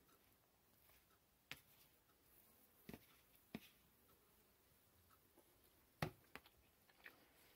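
Near silence: quiet room tone broken by a handful of faint short clicks, the sharpest about six seconds in.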